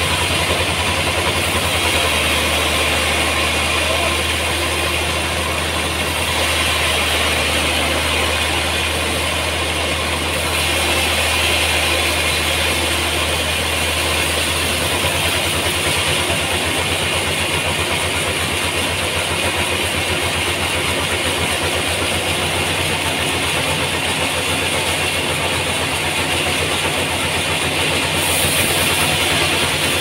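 Large band sawmill running steadily, its blade sawing lengthwise through a big trembesi (rain tree) log.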